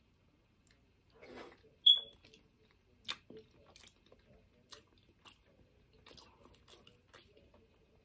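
A person chewing a bite of hard-boiled egg with wet mouth sounds and irregular small clicks. A single sharp, loud click about two seconds in stands out above the rest.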